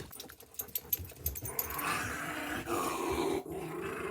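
A dog growling, a low rough rumble that goes on through most of the stretch, with a few sharp clicks in the first second and a half.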